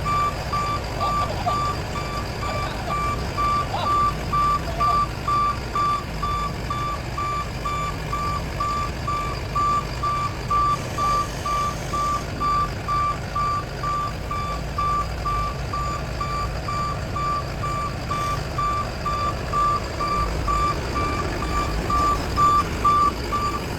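Backup alarm on an XCMG XC870K mini wheel backhoe loader beeping steadily at about two beeps a second, over the low rumble of the machine's engine running.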